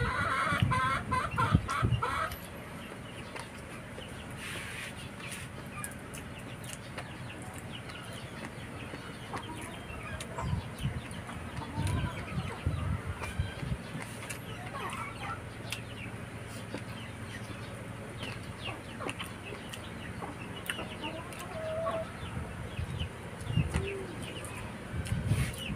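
Chickens clucking, with a loud call in the first two seconds, over close eating sounds: chewing and small clicks as fingers work food on a plate.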